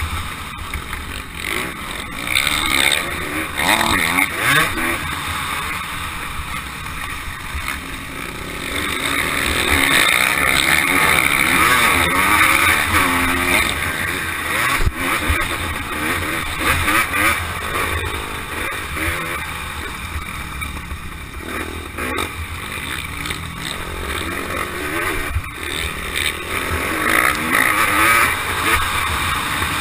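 Dirt bike engine revving hard and easing off again and again as it is ridden round a motocross track, its pitch rising and falling with throttle and gear changes. Heard from a helmet-mounted camera, with wind buffeting the microphone underneath.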